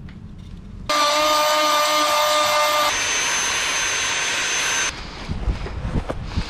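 Electric grinder running steadily against cured fibreglass and epoxy, grinding the mount down; a steady whine over a gritty hiss. It starts suddenly about a second in, jumps to a higher whine partway through and cuts off abruptly about five seconds in, leaving low wind noise on the microphone.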